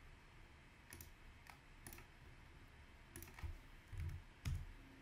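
Scattered soft clicks of a computer mouse, about seven of them, a few heavier near the end, over a faint low hum.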